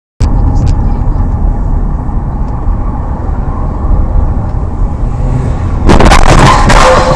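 Car on the road heard through a dashcam: a steady low rumble of engine and road noise, with a few clicks at the start. About six seconds in, a sudden, much louder and harsher noise cuts in and carries on.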